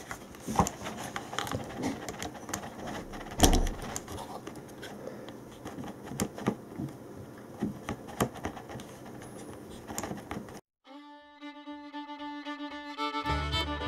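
Irregular small plastic clicks and knocks as the cordless drill's switch and its 3D-pen-repaired rotation lever are fitted and worked by hand inside the open housing, with one louder knock early in the sound. After about ten seconds it cuts to bluegrass-style fiddle and guitar music.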